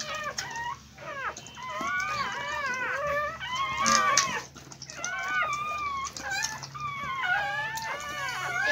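Newborn Siberian husky puppies crying: many short, high-pitched whimpering squeals that rise and fall, several overlapping at once, over a faint steady low hum.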